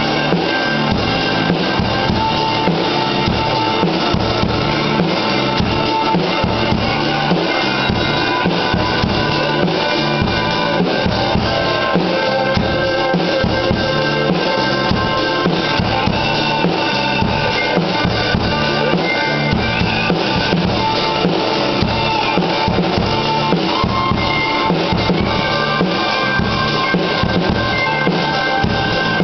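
Acoustic drum kit played with sticks in a steady rock groove, with bass drum and snare hits, along with a recorded rock song.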